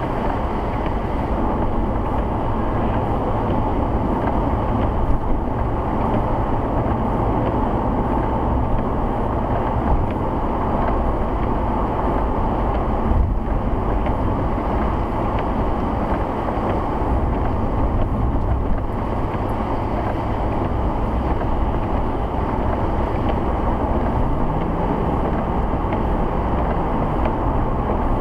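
Steady in-cabin road noise from a 2008 Ford Crown Victoria Police Interceptor cruising on a wet highway: tyre hiss on wet pavement over the low hum of its V8.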